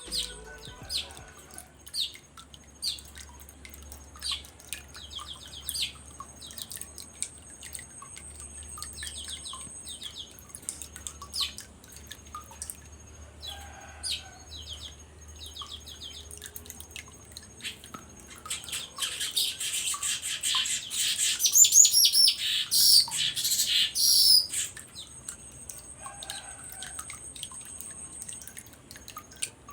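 Streaked weaver (manyar jambul) singing: short chipping notes spaced about a second apart, then a loud run of rapid, buzzy chattering notes lasting about five seconds, starting about two-thirds of the way in.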